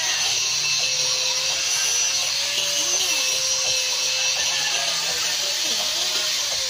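Steady high whirring hiss from a bolo-knife smithy, with faint wavering tones underneath.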